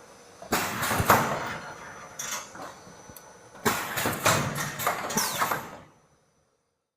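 Automatic cup filling and sealing machine at work, with clattering knocks and bursts of noise in two stretches. The sound cuts off suddenly about six seconds in.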